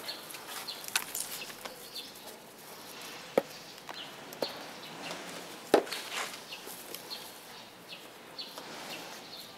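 Hand trowel scooping and scraping loose potting soil into a plastic planter, with soil rustling as it is patted down and a few sharp knocks of the trowel against the pots, the loudest about two-thirds of the way through.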